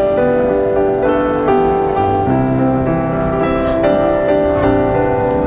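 Music with piano, slow held notes and chords changing about once a second.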